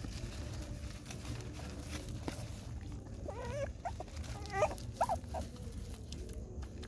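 A young puppy whimpering: a few short, wavering high-pitched cries about halfway through, over a steady low rumble.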